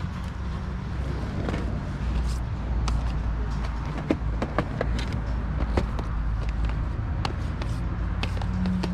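A vehicle's engine running steadily, with scattered sharp clicks and knocks.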